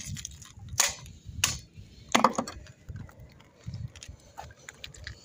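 A wooden board and a knife knocking and scraping against a concrete edge: a few sharp knocks and clinks, the loudest about two seconds in.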